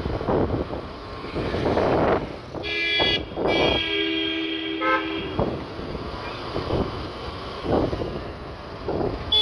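City street traffic: engines and road noise swelling as vehicles pass, with a vehicle horn honking about three seconds in and held for roughly two seconds.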